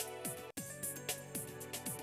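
Background music with a steady beat of high ticks and sliding low notes; it cuts out for an instant about half a second in.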